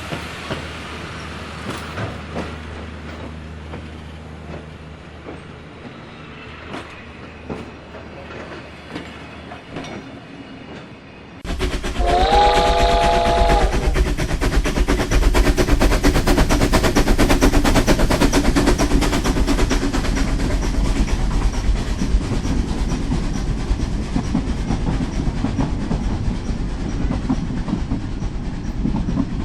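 Dubbed-in railroad sound effects: a train rolling along with scattered wheel clicks. About a third of the way in a much louder passing-train recording cuts in abruptly, starting with a short warning blast of the train's horn or whistle. After that comes a steady loud rumble with rapid clickety-clack of wheels over rail joints.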